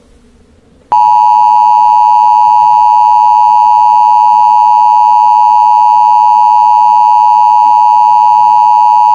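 Emergency Alert System two-tone attention signal: a loud, steady electronic tone of two close pitches sounded together, starting about a second in. It signals that an emergency alert message is about to follow.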